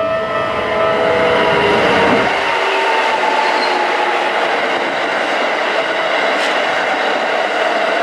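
Keikyu 1500 series electric train running past over a level crossing: steady wheel-on-rail running noise with some clickety-clack, and a whine falling in pitch in the first few seconds. The crossing's electronic warning tones sound at the start and are drowned out as the cars go by.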